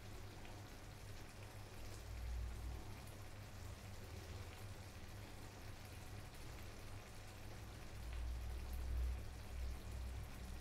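Faint bubbling and crackling of a tomato-and-chili fish stew simmering in a frying pan, with low rumbles about two seconds in and again near the end.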